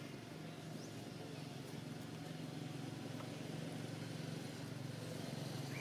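Steady low hum of an idling engine, with a faint short high chirp about a second in.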